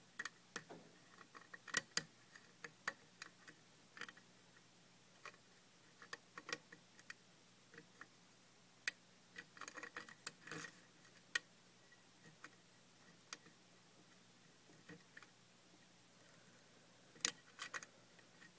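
Light, irregular metallic clicks and ticks of a thin Peterson 0.015-inch pick working the pins of a five-pin EMTEK cylinder lock held under a tension wrench, during single-pin picking. The clicks come in scattered clusters, with a quieter stretch a few seconds before the end.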